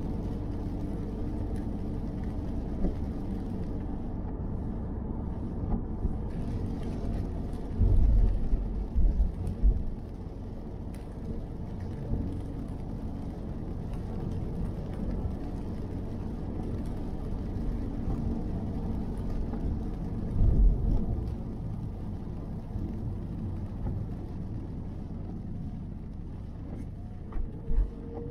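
Steady road noise inside a moving car's cabin on a wet road in the rain: a low rumble of tyres and engine, with a few heavier low thumps, a cluster about a third of the way in and again after two-thirds.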